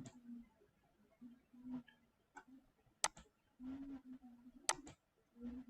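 Computer mouse clicking: a few sharp, isolated clicks, one about three seconds in and two in quick succession near the end.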